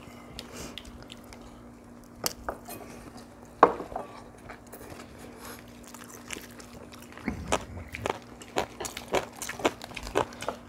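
People eating at a table: chopsticks and dishes clicking and knocking, with chewing and biting into lettuce wraps. The clicks are scattered at first and come several a second in the second half, over a faint steady hum.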